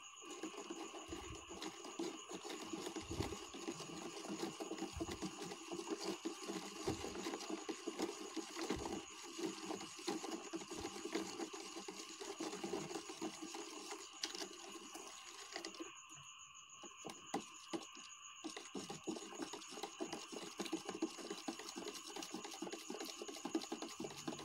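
A spoon stirring quickly in a plastic cup, a rapid run of light clicks and scrapes, dissolving sodium metabisulfite (SMB) in warm water; it stops for a moment about two-thirds through. A faint steady high whine sits behind it.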